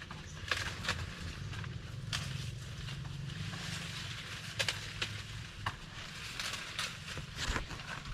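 Dry corn plants crackling and rustling with irregular sharp snaps as ears are picked by hand, over a low steady hum.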